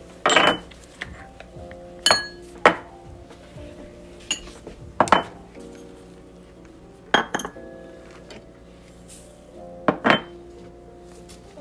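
Small spice bowls and a spoon clinking sharply against a steel cooking pot as spices are tipped onto raw chicken. There are about ten clinks, coming in small clusters every two or three seconds, over soft background music.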